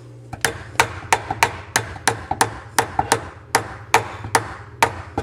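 A hammer tapping a mounting lug on a garbage disposal's mounting ring, quick even strikes about three a second, driving the ring up its ramp so the disposal locks onto the sink flange.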